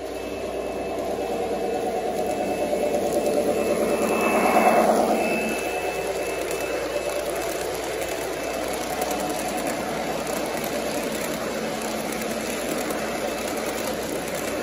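Model Western Maryland GP30 diesel locomotive and its passenger cars running past on the layout track: a steady whir and rolling rumble that is loudest as the locomotive goes by about four to five seconds in, then the cars rolling past at an even level.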